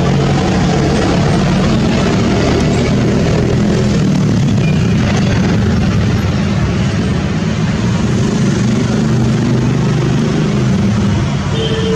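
A steady engine-like drone under a constant rushing noise, running evenly without a break.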